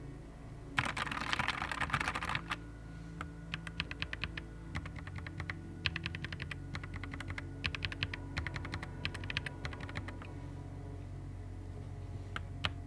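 Nuphy Air 75 V2 low-profile mechanical keyboard being typed on. A fast flurry of keystrokes comes about a second in, followed by bursts of separate key clicks and a couple of last clicks near the end.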